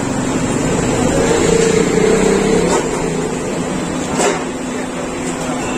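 Street traffic: a motor vehicle's engine running close by, with a steady drone for about two seconds near the start. Two short clicks come later.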